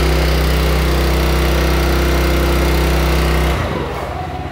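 Small gasoline engine on a log splitter running steadily, then dropping away suddenly about three and a half seconds in.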